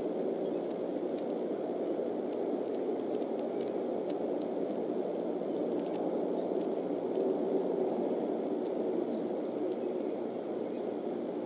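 Steady rushing background noise from the outdoor microphone of an eagle-nest camera, with a few faint ticks over it.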